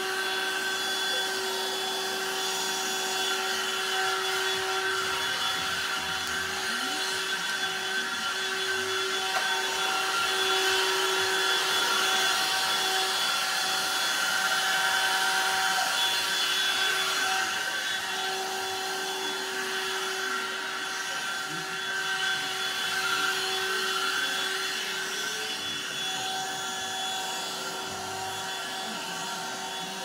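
Cordless handheld vacuum cleaner running steadily: a constant motor whine over a rush of air, its pitch holding while it is pushed over carpet and tile floor.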